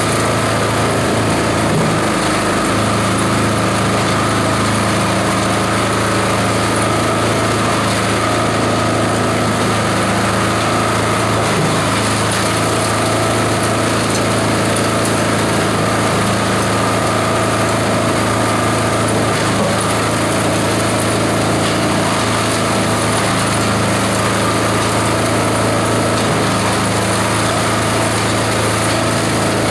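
Esteban 9-in-1 multi-purpose chopper-shredder running steadily while shredding coconut husks into coir fibre, an even, unbroken machine drone with a low hum.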